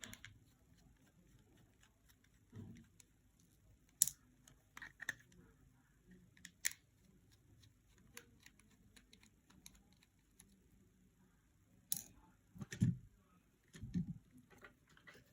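Sparse small clicks and taps of a precision screwdriver and tools on a mobile phone's housing during disassembly, with a few louder knocks near the end.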